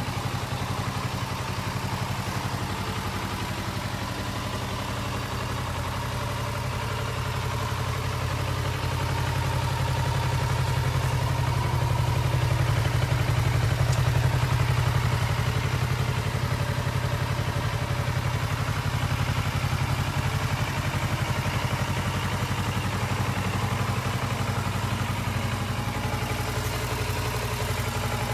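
Kawasaki Ninja 650L's parallel-twin engine idling steadily. It gets louder around the middle as the exhaust comes near.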